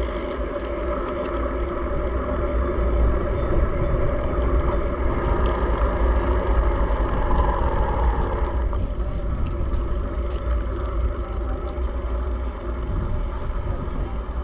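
Wind rumbling on the microphone, with a motor vehicle's engine running steadily; its tone falls about eight seconds in.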